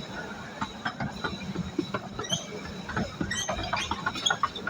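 A 12-inch-gauge miniature railway train on the move, its coach and wheels rattling and clicking irregularly, with small squeaks over a steady low hum.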